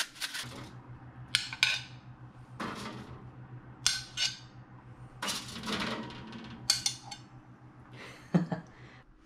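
Metal kitchen tongs clinking and scraping as artichoke halves are lifted from an oven tray onto a ceramic plate: about ten separate short clatters, with a steady low hum underneath.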